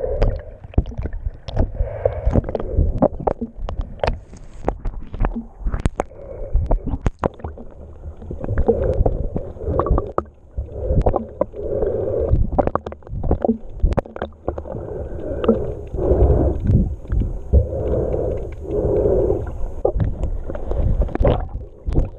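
Muffled underwater sound from a camera in its waterproof housing: a low rumbling wash of moving water with frequent sharp clicks and knocks.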